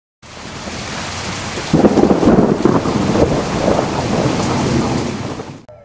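Heavy rain falling, joined about two seconds in by a long roll of thunder that rumbles unevenly and slowly dies down; both fade out near the end.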